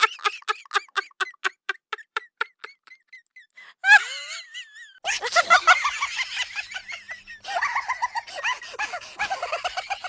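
Laughter: a quick run of short 'ha' pulses that slows and fades over the first three seconds, a short wavering cry about four seconds in, then a longer, denser burst of laughing from about five seconds.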